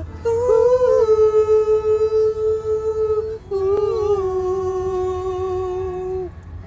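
Singing voice holding two long notes, the second a little lower than the first, each opening with a small waver in pitch, over a steady low car-ride rumble.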